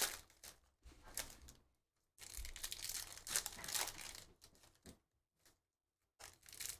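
Foil wrapper of a sports-card pack being torn open and crinkled by hand, in several short spells of ripping and rustling with brief silent gaps between.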